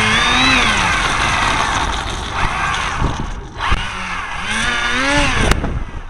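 Model airplane's motor revving up and down in several long surges, with a sharp click near the end before the motor is cut back.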